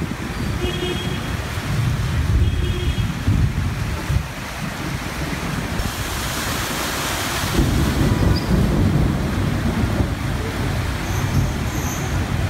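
Heavy rain and city traffic on a flooded street: a steady hiss of rain, with cars driving through standing water and wind buffeting the microphone. A louder rush of water comes about six seconds in.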